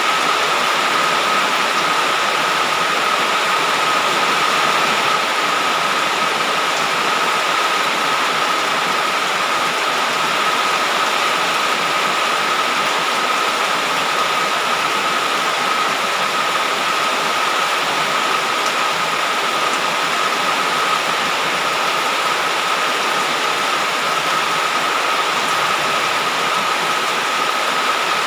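Heavy rain falling steadily, a constant even hiss, with a thin high steady tone running through it.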